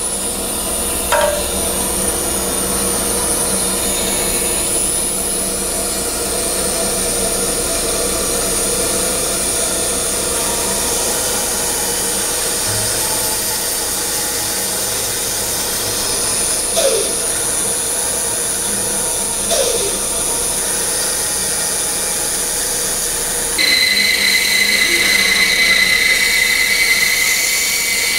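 Bandsaw running steadily while its blade cuts a thick apron board along a curved layout line. A little after twenty seconds in a higher, steady whine sets in and the sound gets louder.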